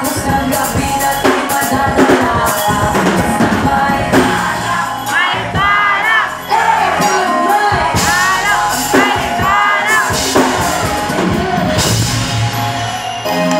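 Live band playing with a drum kit and a woman singing into a microphone, with high sliding whoops in the middle.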